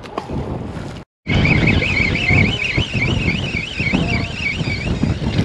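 A high warbling alarm-like tone that rises and falls about three or four times a second. It starts right after a sudden cut to silence about a second in. Wind rumbles on the microphone underneath.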